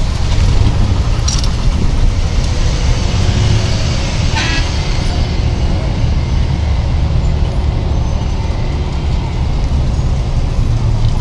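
Road traffic running alongside: a steady low rumble of car, truck and bus engines and tyres. A brief high-pitched sound cuts through about four and a half seconds in.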